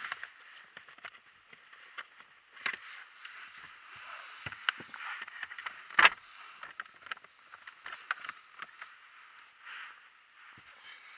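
Scattered small clicks and rustling handling noise over a faint hiss, with one sharper click about six seconds in.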